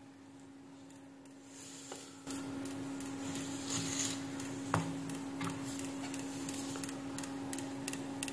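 A 12 V 10 A switch-mode power supply, powered through a series lamp, makes a repeated tick-tick sound of about three ticks a second over a faint steady hum, starting about two seconds in. This ticking with no proper output is the sign of the supply cycling on and off; the faults were a failed 1N4744 zener diode and PC817 optocoupler.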